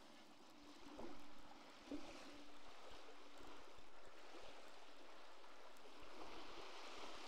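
Faint sea water lapping at the shore, small waves swelling and fading every couple of seconds, with a few faint knocks in the first two seconds.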